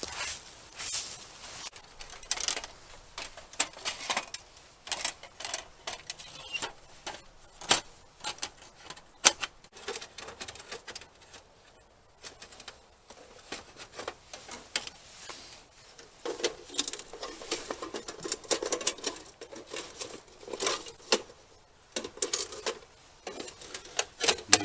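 Metal camp cooking gear being handled: irregular light clinks, clicks and knocks with short pauses between, typical of a small metal stove and cookware being set out.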